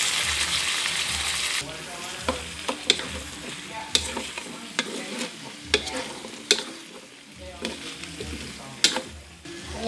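Pork pieces frying in a wok with tomato sauce just added. The sizzle is loud for about the first second and a half, then drops lower. A spatula stirring the pan knocks and clicks against the wok several times.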